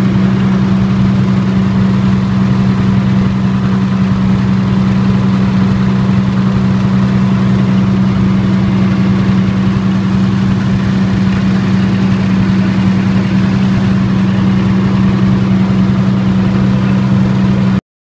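30 kW military diesel generator set running steadily at constant speed, a loud, unchanging drone with no rise or fall, while it burns a blended natural gas and diesel fuel.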